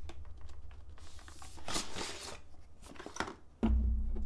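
Cardboard packaging rustling and scraping as a hard plastic carrying case is slid out of its box and handled, with a few light clicks and one louder swish about two seconds in. A low hum comes in near the end.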